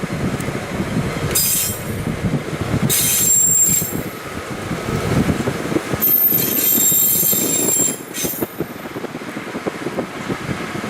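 TMC200 snowplow motor car running on the rails with a steady low rumble and faint knocks from the track. High-pitched metallic squeals from the wheels break in four times, the longest lasting about two seconds near the middle.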